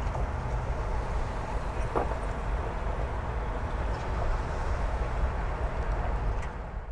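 Steady rumble of freeway traffic heard from a residential street, with a brief knock about two seconds in.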